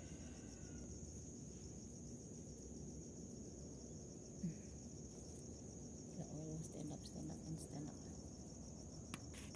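Insects trilling steadily in one continuous high-pitched band, with a short thump about four and a half seconds in and a few faint clicks near the end.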